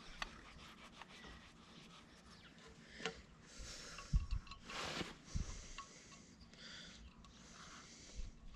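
Faint clicks, knocks and rustling of hand work on engine parts, with a brief louder scrape-like hiss about five seconds in.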